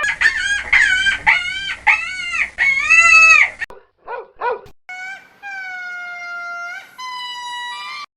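A sequence of animal calls with abrupt cuts between them: a rapid run of about six rising-and-falling cries that stops suddenly, two short calls, then three long calls each held at a steady pitch.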